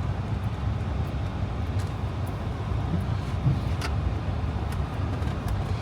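A Jeep driving along a snow-covered trail: a steady low rumble of engine and tyres, with a few faint clicks and knocks.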